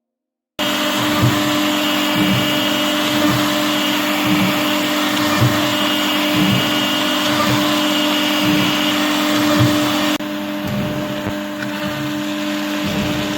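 CNC router machine running: a steady whine over loud motor noise that starts abruptly just after half a second in. About ten seconds in, the higher hiss drops off suddenly.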